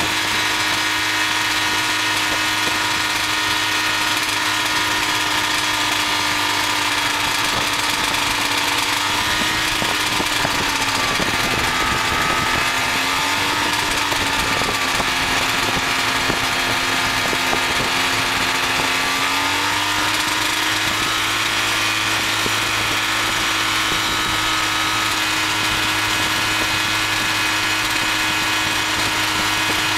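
Ultralight aircraft's pusher engine and propeller running steadily while taxiing. The engine note drops slightly about nine seconds in, wavers, and comes back up around twenty seconds.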